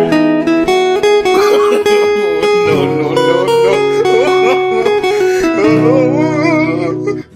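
Background music led by guitar, with held notes and chords, cutting off suddenly near the end.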